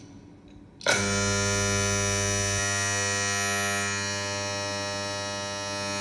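A steady, low-pitched electric-sounding buzzing drone with many overtones starts abruptly about a second in and holds.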